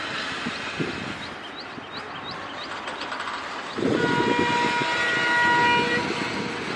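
Diesel locomotive heading an express train, its engine rumbling as it approaches, then sounding its horn in one long chord-like blast about four seconds in. Small bird chirps are heard in the first couple of seconds.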